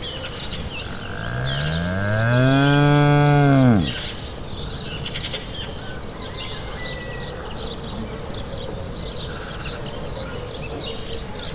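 A cow mooing once: one long, low moo of nearly three seconds that rises in pitch, holds, and drops off at the end. Birds chirp in the background.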